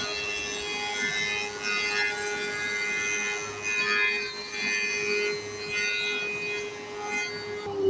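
Lazzari spindle moulder with a power feeder running, cutting along a pine board as it is fed past the cutter: a steady motor hum under a rough cutting noise that swells and fades as the wood passes. Near the end the hum starts to drop in pitch.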